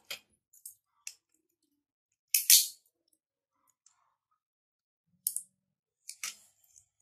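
Kitchen scissors cutting through a cooked mud crab's claw shell: a few light clicks, then a louder crunch about two and a half seconds in, and a couple more snips near the end.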